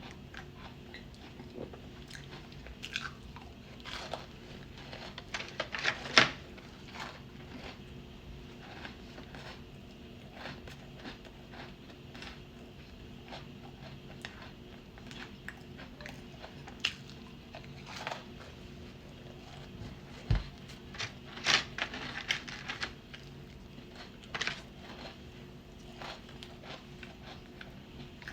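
Close-up chewing and crunching of cookies: irregular crisp bites and wet mouth clicks, loudest about six seconds in and again around twenty-one to twenty-two seconds, over a faint steady hum.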